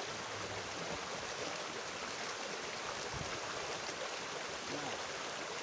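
Shallow river running over rocks in small rapids: a steady hiss of flowing water.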